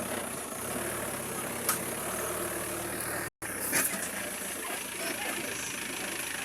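An engine running steadily with a low hum, the sound cutting out for a moment about halfway through.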